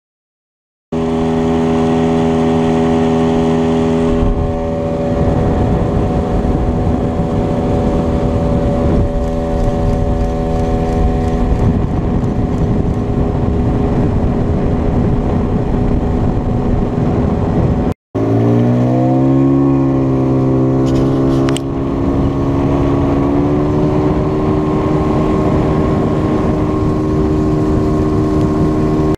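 Motorboat engine running at speed, with rushing water and wind noise. About two-thirds of the way in the sound cuts out for a moment, then the engine speeds up, its pitch rising and levelling off, and rises a little again a few seconds later.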